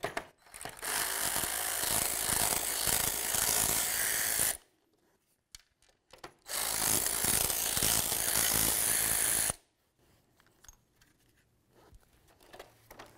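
Electric power ratchet with a 10 mm socket running in two steady bursts of about four and three seconds, spinning off the two nuts that hold the emblem to a plastic grille. Faint handling clicks follow.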